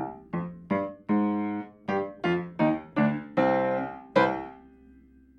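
Piano playing a string of short, separate notes and chords, about two or three a second, ending on a loud accented note about four seconds in that rings and fades away.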